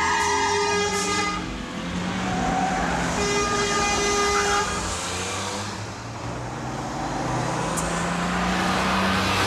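Car horns honking in road traffic: a long blast that stops about a second and a half in and a second one from about three to five seconds in, over steady engine and road noise.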